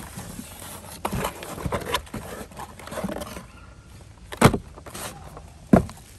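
Cardboard shipping box and plastic wrap rustling and crinkling as a packaged dive light is unboxed by hand, with two sharp knocks near the end.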